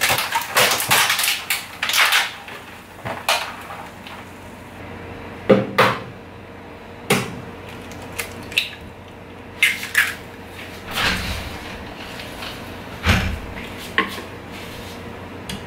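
Scattered clinks and knocks of a ceramic bowl and eggs being handled on a stainless-steel counter, an egg tapped and cracked open on the bowl's rim; a few sharper knocks stand out among lighter clicks.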